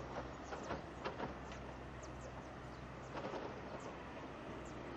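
Distant Boeing 737-200 on landing approach: a steady, fairly quiet rush of its Pratt & Whitney JT8D turbofan engines, with many short high chirps falling in pitch and a few sharp clicks over it.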